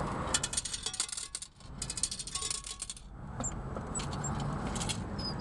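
Change being taken from a ticket vending machine's metal tray: coins clink and rattle against the metal in two quick flurries of clicks, over a low steady background rumble.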